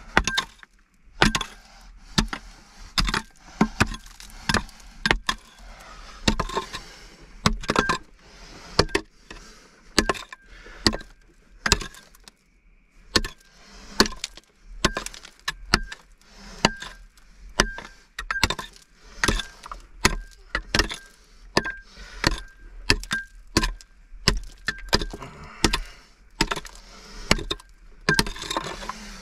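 Repeated sharp knocks and clacks, roughly one to two a second and somewhat irregular, over a faint steady high tone that comes and goes.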